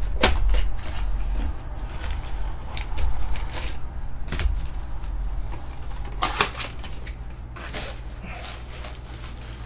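Cardboard trading-card blaster box being opened and its foil card packs pulled out and handled: scattered crinkling, rustling and light clicks, growing sparser toward the end as the packs are set down.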